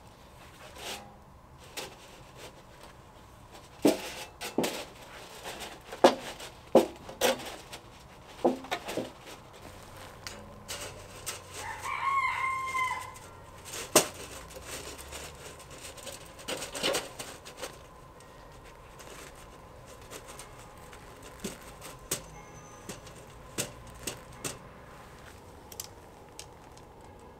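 Scattered knocks and clatter of thin scrap-metal form boards being set and handled on gravel, with one rooster crow about twelve seconds in.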